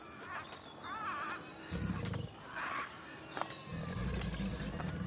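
Animal-farm ambience: a large animal's low, pulsing growls about two seconds in and again from about four seconds on, with a bird's warbling call about a second in.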